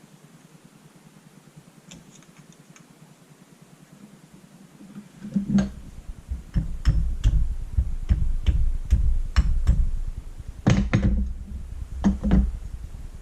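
Sharp knocks and taps on a paintball marker's body as a retaining pin is worked at to drive it out. A few faint clicks come first, then about five seconds in an irregular run of loud knocks begins, roughly two a second, over low thuds of the gun being handled on the bench.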